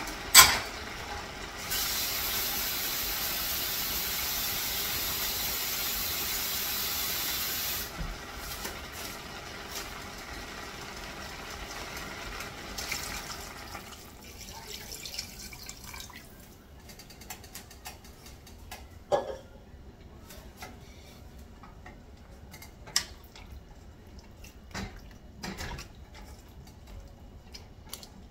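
Water runs steadily from a kitchen tap for about six seconds, filling a glass, and stops abruptly. Later, water is poured into a stainless-steel pot of frying meat, and a spatula knocks against the pot a few times while stirring.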